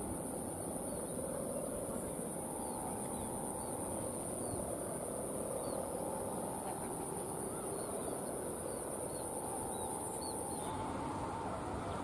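Open-air background noise with a constant high whine and small faint bird chirps repeating about once a second. The whine cuts off suddenly near the end, where the background changes.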